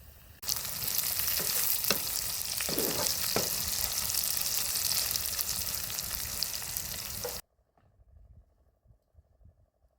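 Food sizzling in hot oil in a frying pan, with a few light knocks of a utensil in the pan; the sizzle starts about half a second in and cuts off abruptly about two-thirds of the way through.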